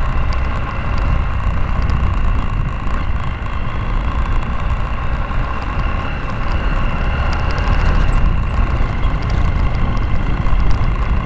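Motorcycle engine running at a steady cruise on a dirt road, under a heavy, continuous rumble of wind and road noise on the bike-mounted camera's microphone.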